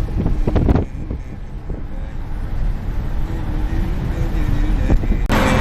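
Steady road and engine rumble inside a moving car on a highway, with wind buffeting the microphone and a thump just under a second in. Near the end the noise jumps abruptly to a louder, hissier rush.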